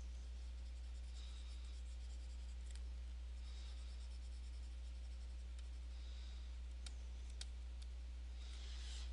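Stylus strokes scratching across a Cintiq pen display's surface as soft, hissy scrapes, with two sharp clicks about seven seconds in, over a steady low hum.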